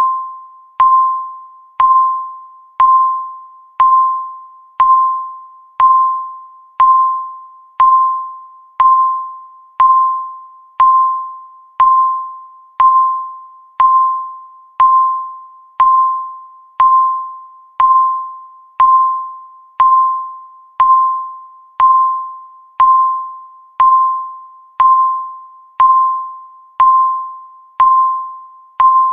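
Countdown timer beeping once a second: a steady train of identical short beeps at one pitch, each sharp at the start and quickly fading.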